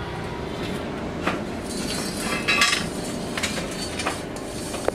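Lead-acid battery plates clinking against each other and the rack as they are handled and stood in place: a handful of short, sharp clinks, the loudest cluster about halfway through, over a steady background hum.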